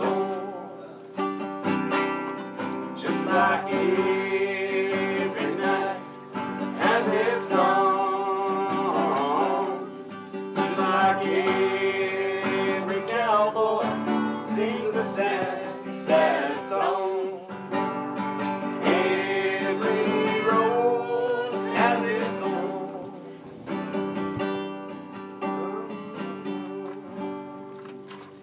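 A man singing to his own strumming on a nylon-string classical guitar, the playing growing softer near the end.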